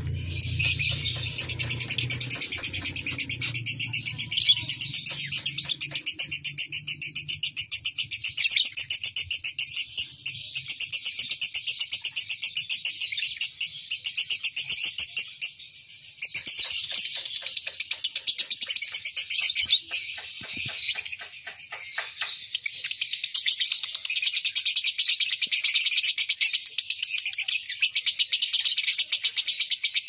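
Fischer's lovebirds chattering: a loud, fast, unbroken stream of high-pitched chirps that eases briefly about halfway through and again a little later.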